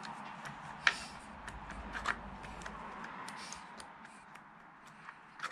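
Scattered light clicks and taps of small parts and tools being handled, with a sharper click about a second in and another about two seconds in, over a faint steady hiss.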